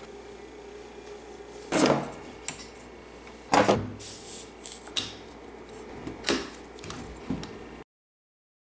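A handful of sharp metallic knocks and clicks, hands handling a brass fill probe against an air rifle's fill port, over a faint steady hum. The sound cuts off abruptly near the end.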